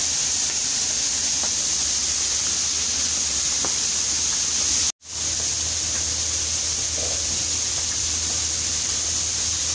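Hot oil in a deep fryer sizzling steadily around flour-coated shrimp and squid in a wire frying basket. The sizzle cuts out for an instant about five seconds in.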